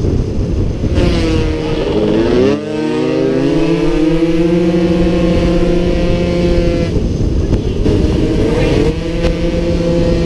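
Onboard sound of a 50cc racing motorcycle engine running hard, with heavy wind rush on the microphone. About two seconds in the engine note dips and then climbs back up, holding steady after that, with another brief rise near the end.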